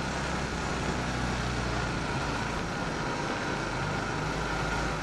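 500cc buggy engine running at low speed, a steady low drone heard from on board, with road noise; the low note shifts about two seconds in.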